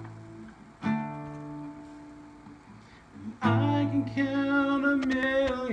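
Acoustic guitar chords strummed as a song's intro: one chord about a second in, left to ring and fade, then a louder chord about three and a half seconds in.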